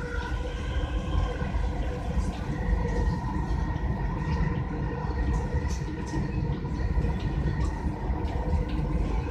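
Dubai Metro Red Line train running along its elevated track, heard from inside the carriage: a steady low rumble with faint steady tones above it.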